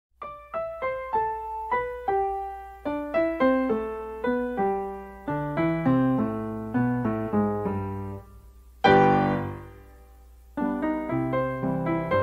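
Background piano music: a brisk tune of struck notes over a bass line, with a loud chord about nine seconds in that fades into a short pause before the playing resumes.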